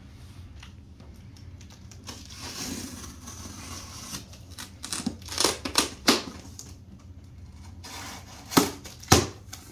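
A knife slitting the packing tape along the seam of a cardboard box, with a hissing scrape of blade on tape and cardboard, then several sharp rips and cracks of tape and cardboard. The two loudest come near the end as the flaps are worked open.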